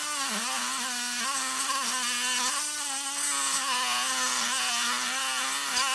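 DeWalt 12V Xtreme brushless reciprocating saw (DCS312) running steadily under load as its metal blade cuts through 1-inch black steel pipe, a steady motor whine whose pitch dips briefly just after it starts.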